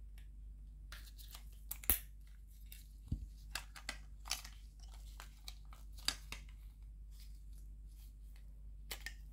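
Irregular small clicks and crackles of the Logitech Marble Mouse's plastic shell and circuit boards being handled and pulled apart by gloved hands, the sharpest click about two seconds in, over a steady low hum.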